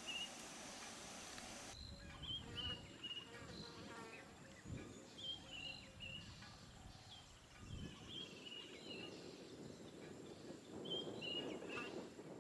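Faint bush ambience with short, high, falling chirps repeating in small clusters every second or two, plus a few brief rasps and soft low rustles.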